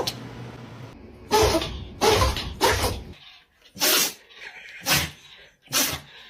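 A dog sneezing repeatedly: about six short, sharp sneezes in a row, the first about a second and a half in.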